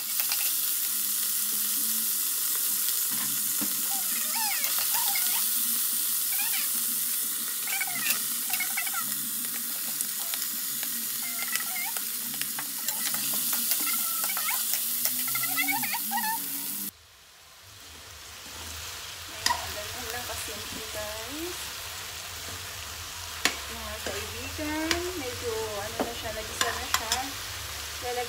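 Food sizzling in hot oil in an aluminium wok while a metal ladle stirs it. The sizzle is loud and steady at first, then drops suddenly to a quieter sizzle with ladle clicks as diced bottle gourd is stirred.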